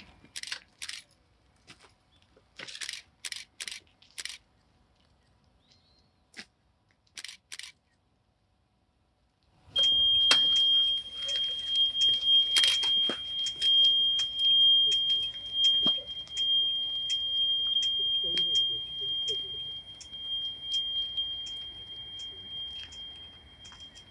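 A steady high-pitched electronic tone, like an alarm buzzer, comes in about ten seconds in and holds on over a run of small clicks. Before it there are short scattered hissing noises and a moment of dead silence.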